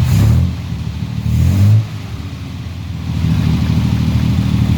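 A motor running with a low pulsing hum as a spoked wheel is spun to check its wobble. It surges and shifts in pitch twice in the first two seconds, dips for about a second, then settles back to steady running.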